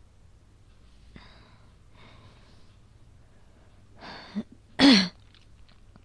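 A woman's faint breaths, then a breath in and one loud, voiced cough about five seconds in, coughing from an asthma attack.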